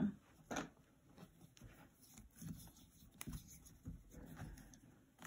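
Faint handling noises of hands pressing and smoothing a plasticine clay dome on a work board: soft rubbing and a few light knocks, with one sharper click about three seconds in.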